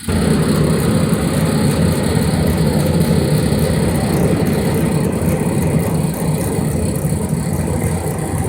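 Homemade Gingery-style metal-melting furnace running with its forced-air blower: a loud, steady rushing drone that starts suddenly.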